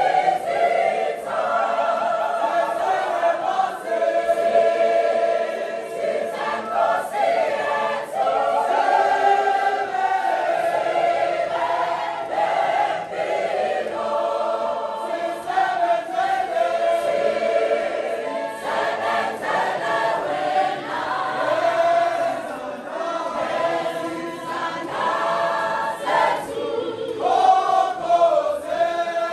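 A church choir, mostly women's voices, singing a hymn in several parts, unaccompanied.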